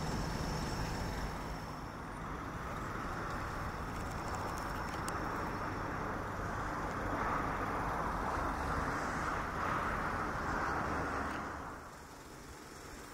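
Steady outdoor background rushing noise that grows louder in the middle and drops away near the end.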